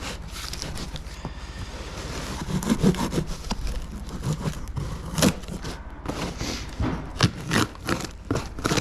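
Cardboard box being opened and handled: irregular scraping and rubbing with scattered knocks and clicks.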